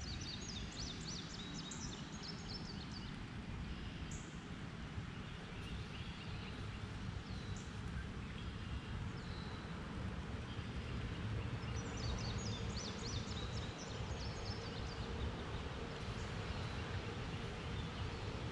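Outdoor creek-side ambience: steady background noise with a low rumble, and a songbird singing two phrases of rapid high repeated notes, one near the start and one about twelve seconds in, with a few single chirps between.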